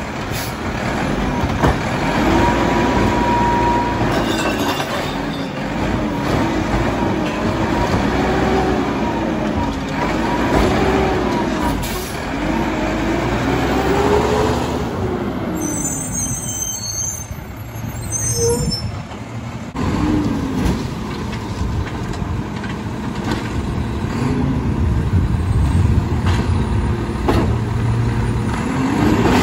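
Mack LEU garbage truck's engine revved hard again and again, its pitch rising and falling every couple of seconds, as the engine speed drives the McNeilus side-loader's hydraulic packer. Past the middle it eases off for a few seconds, then the revving picks up again.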